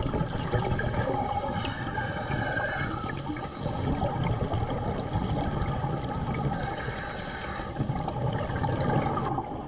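Underwater sound of a scuba diver's exhaled air bubbling and gurgling, with two stronger bursts about two seconds in and again about seven seconds in, over a steady background hum.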